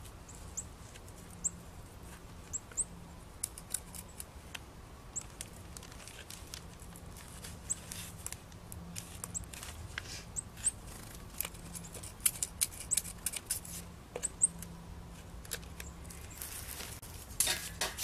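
Scissors snipping through a sweater sleeve soaked in wet Portland cement, cutting an entrance hole: a scatter of irregular small clicks, with a brief rustle near the end.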